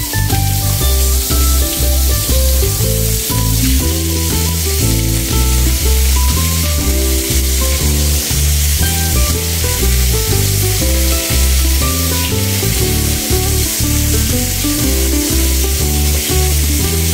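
Fish steaks sizzling in hot oil in a nonstick frying pan as they are laid in one after another, with a steady frying hiss. Background music with a melody and a steady bass line plays over it.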